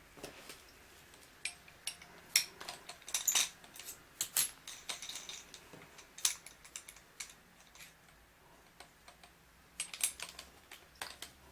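Irregular light clicks and taps of small hard tool parts being handled, with no drilling. The clicks come in a cluster a couple of seconds in and another near the end.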